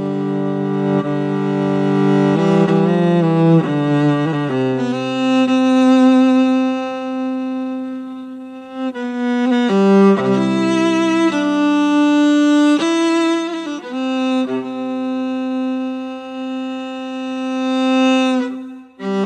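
Background music of bowed string instruments playing long held notes that shift in pitch every second or two, with a brief drop in level near the end.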